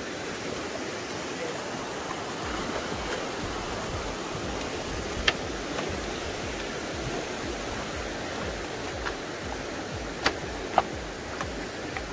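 Steady rushing of a river flowing over rapids, with a few sharp clicks about five seconds in and twice near the end.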